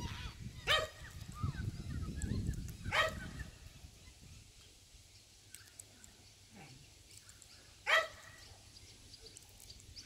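A dog barking: three single sharp barks a few seconds apart, over a low rumble that dies away after the second bark.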